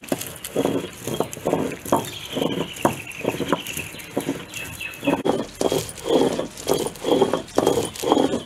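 Stone roller of an ammikal being rolled back and forth over the stone slab, grinding spice paste in a steady rhythm of rasping strokes, two to three a second, with a short lull about halfway through. A bird chirps faintly, a falling run of notes early on and short calls later.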